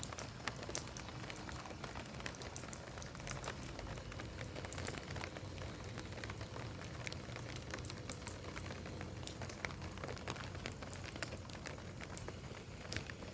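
Steady rain falling, with many individual drops ticking sharply on a nearby surface over a low steady hum.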